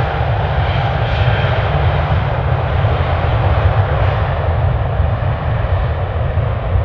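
Airbus A350's Rolls-Royce Trent XWB turbofans at high power on departure: a loud, steady jet rumble, its upper hiss dulling slightly in the second half.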